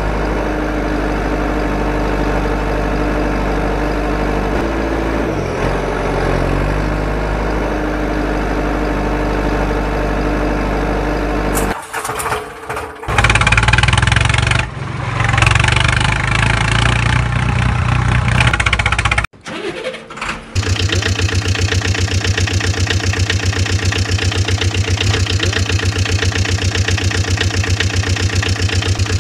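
Vehicle engine sounds running steadily, broken by abrupt cuts. In the middle comes a louder stretch that rises and falls like revving. From about two-thirds of the way in, an engine idles with an even, rapid chug.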